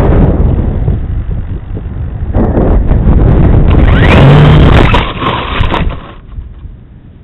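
Loud wind buffeting the microphone of a camera riding on a radio-control plane in flight. The rushing noise stops abruptly about six seconds in, leaving a much quieter hiss.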